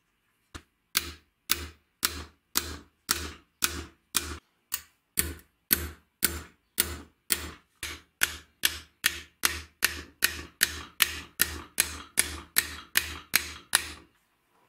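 Light hammer taps on a small steel ring from an old spring scale, evenly paced at about two taps a second, some two dozen in all, stopping near the end.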